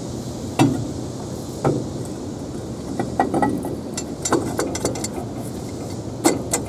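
Cast-iron exhaust manifold clinking and knocking against the engine block and studs as it is fitted by hand onto a Ford 8N's engine: a scatter of sharp metal clicks over a steady background hum.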